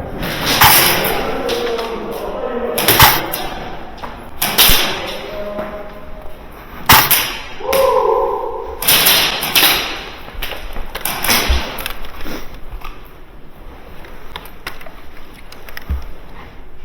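Airsoft guns firing during a skirmish: irregular sharp snaps and thuds spread across the stretch, with distant voices underneath and a brief steady tone about halfway through.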